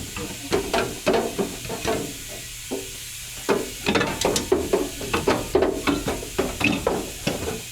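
Irregular metallic knocks, clinks and scrapes as the catalytic converter and its exhaust parts are worked loose by hand.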